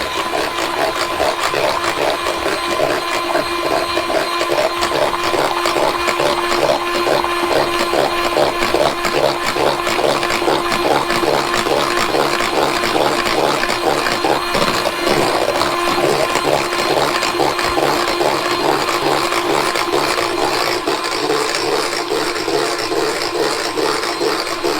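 Electric mixer running steadily with a hum and a regular pulsing, whisking eggs and sugar for a sponge batter that is beaten until it doubles in volume.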